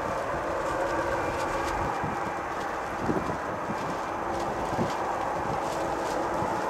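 Airbus A319-111's CFM56 turbofan engines at takeoff thrust as the airliner climbs away: steady jet noise with a hum of several tones. A couple of soft thumps about three and five seconds in.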